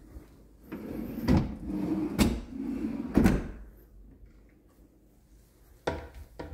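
Deep kitchen pull-out drawer slid shut on its metal runners, a rolling run with three knocks as it travels and closes. Near the end come two sharp clicks as a cabinet door is pulled open.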